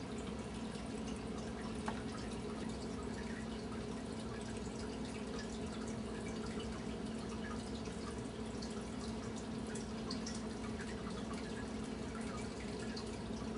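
Steady low electrical hum with hiss and faint scattered ticks and crackles.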